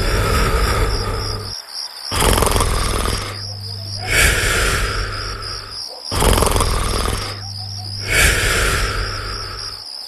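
Cartoon snoring sound effect repeating about every four seconds: a rumbling inhale, then a breathy exhale that falls in pitch. A steady chorus of chirping crickets runs under it.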